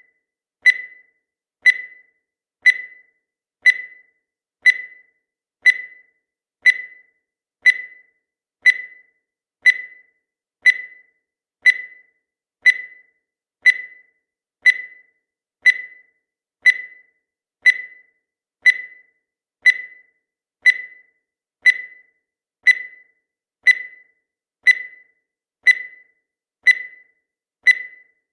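Countdown timer sound effect: a short, high electronic tick once a second, each one fading away quickly, at an even steady pace.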